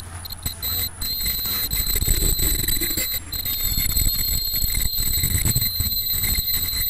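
Automatic KN95 mask-making machine running: a steady high-pitched whine over continuous mechanical clatter and low rumble.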